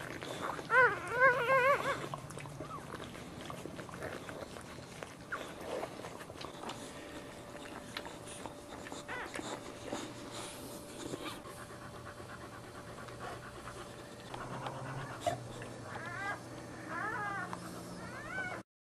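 Newborn boxer puppies crying in high, wavering squeals, loudest about a second in and again in a few short cries near the end.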